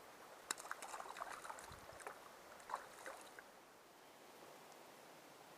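Faint steady rush of a mountain stream, with about three seconds of splashing and clattering knocks starting about half a second in.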